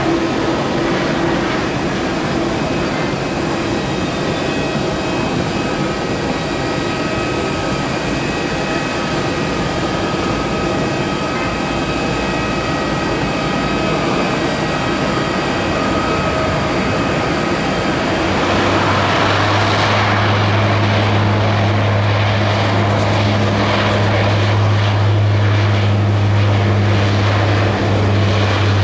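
Airliner engines on the runway: first a regional jet's engines with a broad rush and a thin steady whine. About two-thirds of the way in, the deep steady drone of a Dash 8 turboprop's propellers comes in and grows a little louder.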